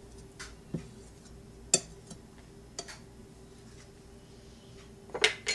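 A kitchen utensil tapping and clinking against a stainless steel mixing bowl and measuring cup while shortening is scraped out: a few sharp clinks about a second apart, the loudest about halfway, and two close together near the end. A faint steady hum runs underneath.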